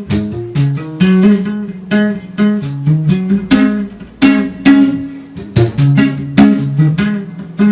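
Bass guitar played solo high up the neck: a quick run of single plucked notes, several a second, moving up and down in pitch.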